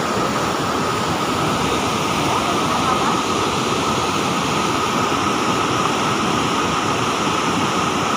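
Floodwater pouring through the dam's spillway gates and churning white down the spillway, a loud steady rush of water.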